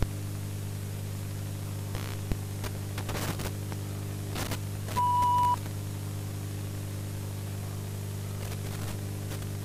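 Analogue VHS-style playback noise: a steady electrical hum under static hiss with scattered crackles and clicks. About five seconds in, a short, steady beep of about half a second is the loudest sound.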